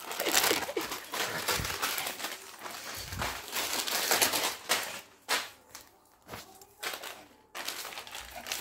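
Plastic packet of leafy greens crinkling and rustling as a Pomeranian tugs and tears at it with its teeth. The crinkling runs steadily at first, then comes in short bursts with brief pauses about halfway through.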